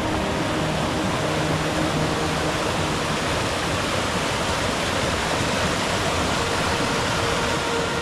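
Mountain stream rushing steadily over boulders and small cascades, a loud, even rush of water.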